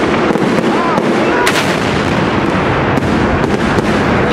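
Salute fireworks display: a dense, continuous barrage of crackling and popping bursts, with one sharper crack about a second and a half in.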